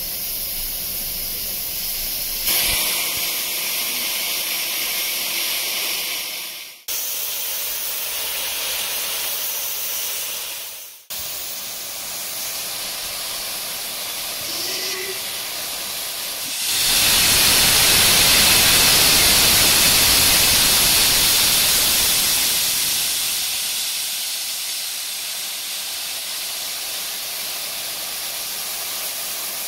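Stationary LMS Jubilee class steam locomotive hissing steam steadily. About seventeen seconds in, a much louder rush of steam starts, holds for several seconds, then slowly dies back to the steady hiss.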